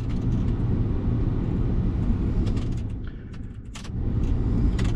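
Ford F-350 Super Duty truck engine idling steadily, with a few sharp clicks in the second half. This is the noise that is still there after a starter replacement, tied to an unresolved electrical short.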